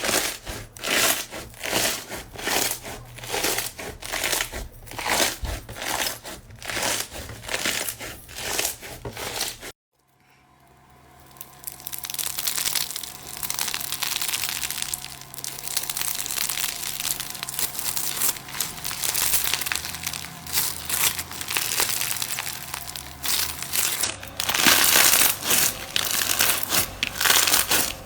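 Slime being pressed and squeezed by hand, making crunching, crackling squishes: first a rhythmic run of presses about three a second, then after a brief silence about ten seconds in, a denser, more continuous crackling.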